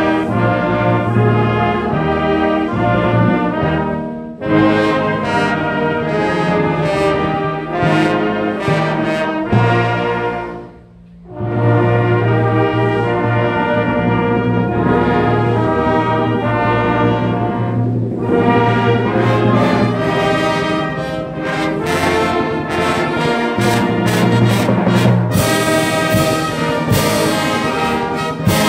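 Brass band playing a slow piece in sustained full chords, breaking off briefly about ten seconds in before resuming.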